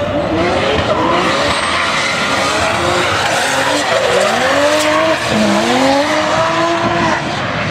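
Two drift cars in tandem, one the custom Opel GT with a 900 hp 2JZ straight-six, their engines revving up and down in several overlapping rising and falling notes over screeching, smoking rear tyres.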